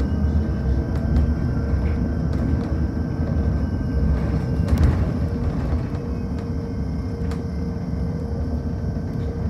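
Cabin of a moving electric bus: steady low road and tyre rumble with a thin, steady whine from the electric drive, and a brief louder jolt about five seconds in.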